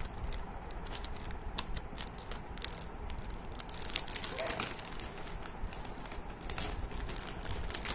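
Plastic inner bag of a Kellogg's Chocos cereal box crinkling and crackling as it is cut and pulled open, in many short irregular crackles.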